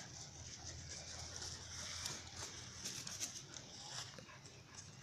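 Dogs playing on grass: soft scuffling and patter of paws, with a few sharp clicks about three seconds in, over a steady high hiss.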